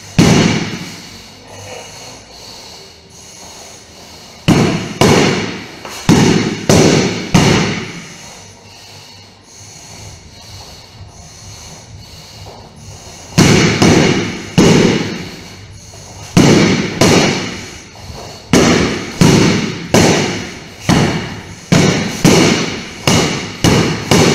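Training sword striking a heavy punching bag: a run of five sharp thuds, a pause of several seconds, then a long, faster run of strikes about two every second, each blow dying away with an echo.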